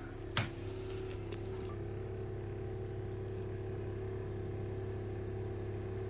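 Compressor of a SetPower TC75 portable compressor fridge running with a low, steady hum and a very minimal amount of noise. It has been running nonstop for a couple of hours, working hard to pull the box down to freezing against 100-degree heat. A short click about half a second in.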